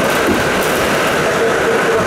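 R68 subway car running through a tunnel, heard from inside the car: a steady, loud rumble of wheels on rail with a faint wavering tone in it.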